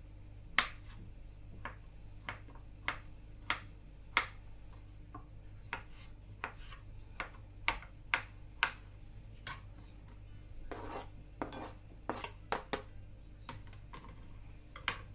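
Knife striking a wooden or plastic cutting board in slow, uneven chops, dicing vegetables into cubes, with a short scraping rub about two-thirds of the way through.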